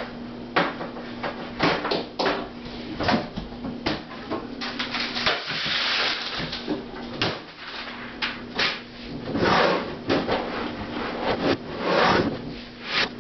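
Kitchen clatter: a long run of irregular knocks and bangs, like doors or drawers being handled, over a steady low hum. The hum drops out for about two seconds midway.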